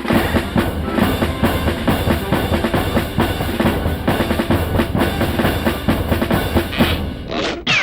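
Loud, fast drum-kit playing with bass drum and snare hits, which stops about seven seconds in.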